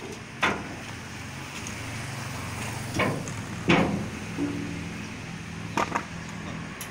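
Heavy wooden loading ramps being shifted into place against a truck bed: about five sharp wooden knocks and scrapes, over a steady low engine hum.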